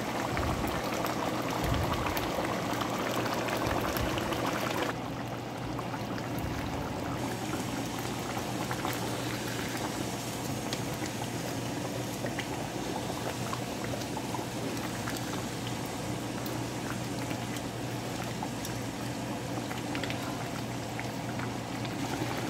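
Thick coconut-milk chicken curry bubbling in a stainless steel pan, a steady dense patter of popping bubbles as the sauce cooks down to thicken. The sound drops a little about five seconds in.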